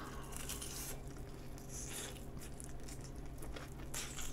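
Close-miked chewing of Kyochon Honey Combo fried chicken: soft, wet biting and chewing, with brighter crisp bites about two seconds in and near the end.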